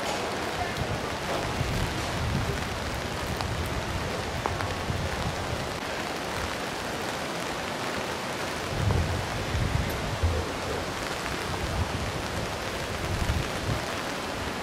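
Steady rain falling on a wet cobblestone street, an even hiss, with low thumps here and there, strongest about nine to ten seconds in.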